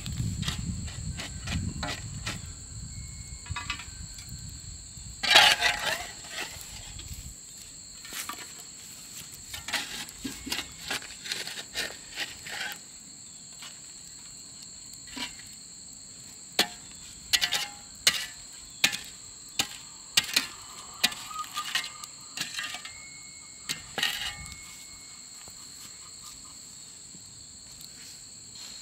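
Metal shovel scraping up campfire coals and dropping them onto a cast-iron Dutch oven lid: a series of scrapes, clinks and rattles, the loudest about five seconds in and more in scattered clusters later. Insects trill steadily throughout.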